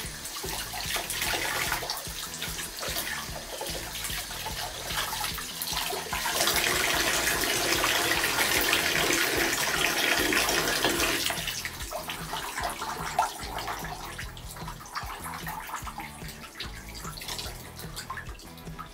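Bathtub faucet running, the water splashing over hair and into the tub as the hair is rinsed under it. The rush grows louder for about five seconds in the middle, then eases off.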